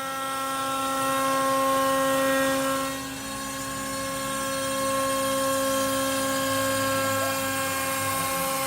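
DIY CNC router milling Baltic birch plywood with a 1/8-inch downcut bit: the spindle and stepper motors run with a steady whine of several tones. The whine dips and shifts slightly about three seconds in.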